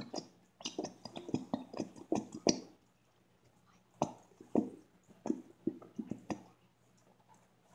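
A plastic bottle of clear glue squeezed upside down over a plastic bowl, the glue squirting out with quick squelches and clicks in two bursts, separated by a short pause.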